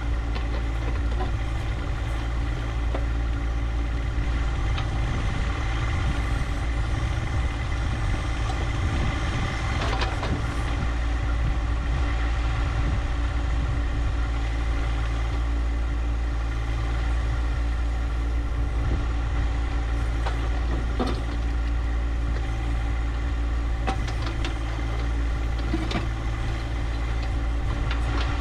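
John Deere 1025R compact tractor's three-cylinder diesel engine running at a steady speed, with a few faint knocks.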